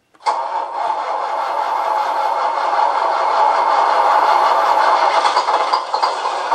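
Beier SFR-1 sound controller playing its simulated engine sound through a small speaker: it comes on suddenly just after the start and then runs steadily at idle. The transmitter stick has just been set to switch the sound on.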